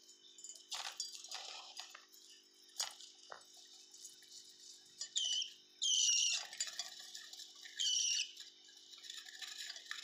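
Young budgerigar chicks calling: three loud, high-pitched chirps, each falling in pitch, about five, six and eight seconds in, the middle one the longest. Before them come rustling and a few sharp clicks, over a faint steady hum.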